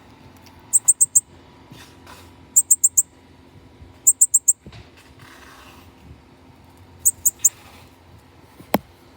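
Young northern cardinal giving runs of four or five rapid, very high chirps, four times over, with a single click near the end.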